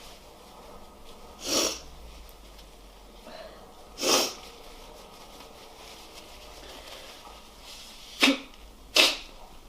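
A man with a head cold sniffing and sneezing: four short bursts of breath through the nose and mouth. The last two, near the end, are sharper, louder and close together.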